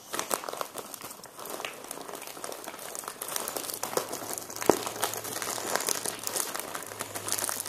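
Packaging crinkling and rustling as it is handled after being cut open: a run of irregular crackles, with one sharper click about halfway through.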